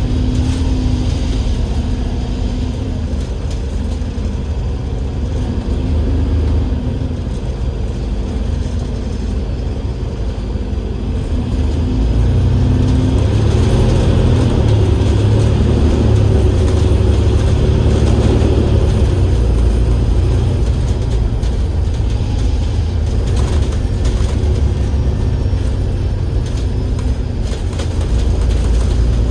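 Enviro500 MMC double-decker bus running, its Cummins L9E diesel engine and ZF Ecolife automatic gearbox giving a steady low rumble. About twelve seconds in it grows louder and heavier.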